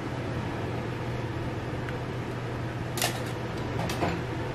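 Steady mechanical hum of a kitchen fan, with two short knocks about three and four seconds in as food is handled on the counter.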